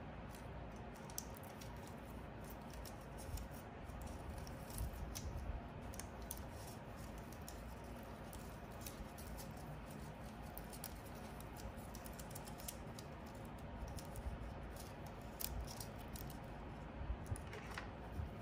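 Faint scattered clicks and rustles as a USB-C to Lightning charging cable is uncoiled and handled by gloved hands, its plastic connectors lightly tapping, over a steady background hiss.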